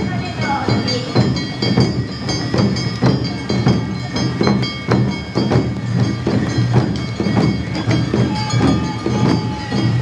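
Live Awa Odori festival music: drums struck in a steady two-beat rhythm, a stroke a little more than every half second, with high ringing tones from bells and flutes, over heavy rain.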